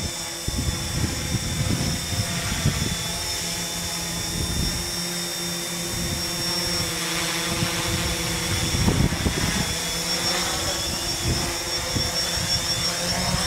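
XAircraft X650 quadcopter's four brushless motors and propellers running with a steady whine of several high tones over a dense hum, as the drone descends and sets itself down on its GPS auto-land.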